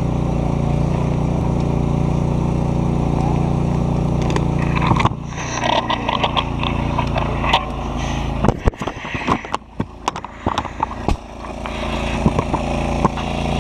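Fire engine's motor running with a steady drone. About five seconds in it turns muffled behind rustling, scraping and a run of sharp knocks from the camera being handled and carried, and the drone comes back up near the end.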